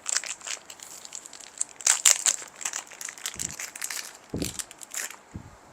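Plastic Epson ink bottle crackling with quick irregular clicks as it drains into the printer's ink tank and nears empty, with a few soft low thumps in the second half.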